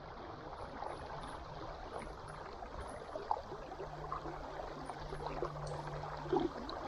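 River water trickling and lapping, with scattered small splashes and ticks. A faint steady low hum runs through much of it and drops out for a moment near the middle.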